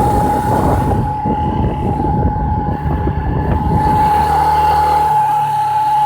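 Yamaha Fazer 150 motorcycle with a steady, high whistle at one pitch over the rumble of its single-cylinder engine; about four seconds in the rumble settles to a lower, steadier hum while the whistle carries on unchanged. The whistle is a strange noise of unknown cause that the dealership could not trace.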